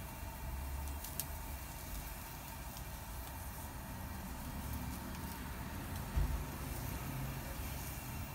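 Steady rushing hum of a running Kosei commercial gas grill's burners, with a dull thump about six seconds in.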